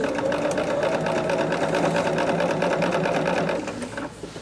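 Bernina sewing machine stitching a seam at a steady speed: an even motor hum with rapid needle ticking, stopping near the end.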